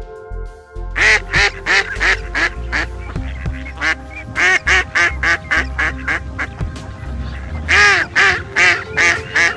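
A duck quacking in rapid runs of short, loud quacks, starting about a second in and coming three times, over background music with sustained tones.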